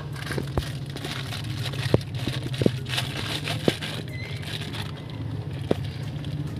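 Scattered sharp clicks and knocks, about half a dozen, of metal wheel-hub and bearing parts being handled, with some rustling midway, over a steady low hum.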